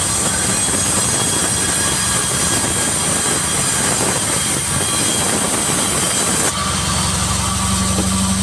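Sawmill saw cutting through a jackfruit log with a loud, steady whine and hiss; about six and a half seconds in the cut ends and the saw's drive runs on with a lower steady hum.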